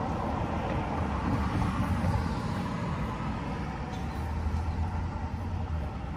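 Low rumble of road traffic, swelling about two seconds in and again a little later.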